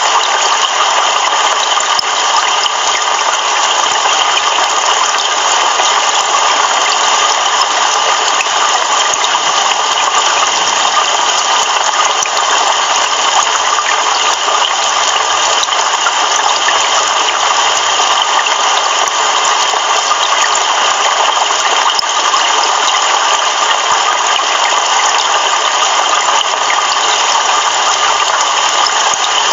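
Heavy rain pouring steadily, an even hiss with no thunder claps.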